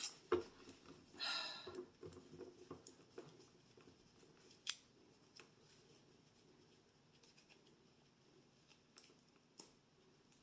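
Faint, scattered clicks, snips and rustles of a doll being worked free of its plastic box packaging, with one sharper click about halfway through.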